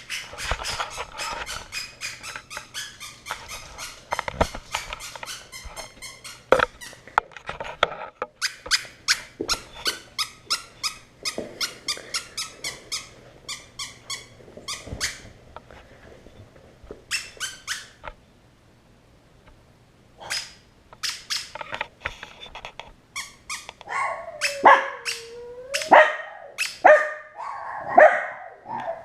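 Several dogs barking in fast, repeated runs, breaking off for a couple of seconds about two-thirds of the way through. Near the end, one long call dips in pitch and rises again among the barks.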